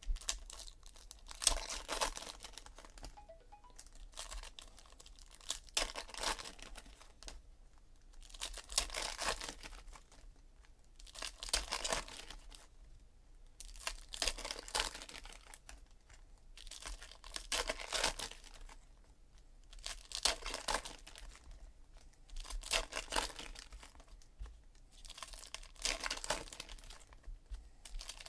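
Shiny foil trading-card pack wrappers (2017 Panini Donruss Optic baseball packs) being torn open and crinkled by hand, one pack after another. A burst of tearing and crinkling comes about every three seconds.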